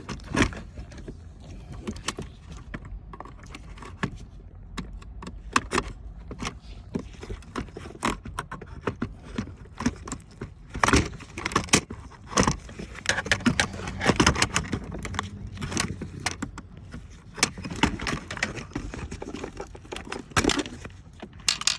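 Irregular clicks, knocks, rattles and scrapes of hands handling a car's transmission shifter assembly and its console parts, with clusters of louder knocks in the middle and near the end.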